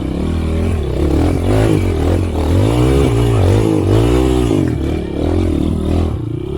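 Motorcycle engine running under load while being ridden, its pitch rising and falling several times as the throttle is opened and eased.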